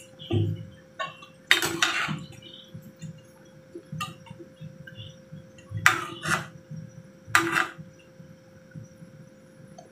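Metal tongs and a ladle clinking and scraping against a stainless steel pan as rice noodles are turned in broth, in a few short clatters, the loudest about a second and a half in and around six and seven and a half seconds. A steady low hum runs underneath.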